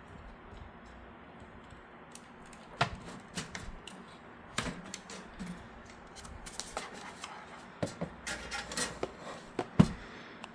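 Irregular small clicks and knocks of PC case hardware being handled, starting about three seconds in and growing busier toward the end.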